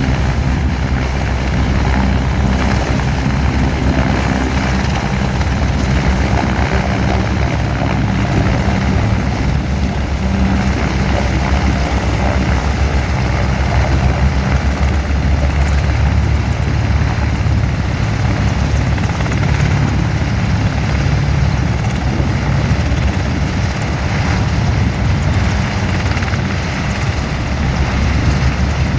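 EH-101 Merlin military helicopter hovering low and then slowly climbing away, its rotor noise loud and steady.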